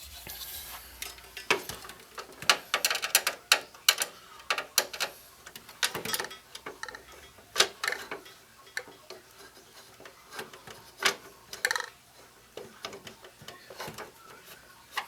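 Hand screwdriver driving long mounting screws through a case fan into a CPU liquid-cooling radiator: irregular sharp clicks, ticks and scraping of metal screws and tools on the fan frame and case.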